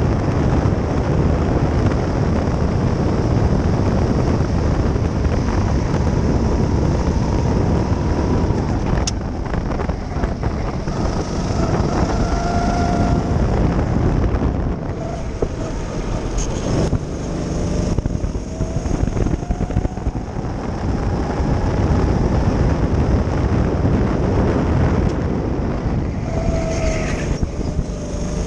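Go-kart engine running at speed, its pitch rising and falling through the corners, under loud wind buffeting on an onboard microphone.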